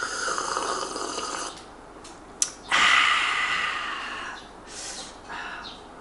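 Person slurping coffee from a cup in noisy sips: one long slurp, a short click, a louder long slurp, then two short ones.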